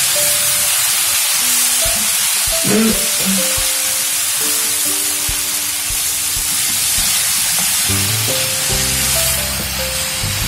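Vegetable noodles sizzling as they are stir-fried in a kadai and tossed with a wooden spatula, under steady background music.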